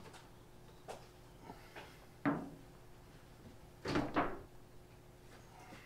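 A few scattered knocks and clunks of things being handled and set down on a workbench, the loudest a double clunk about four seconds in.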